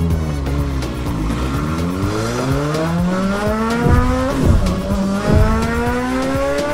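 An engine accelerating, its pitch rising slowly and steadily without a break, with a few knocks about four and five seconds in.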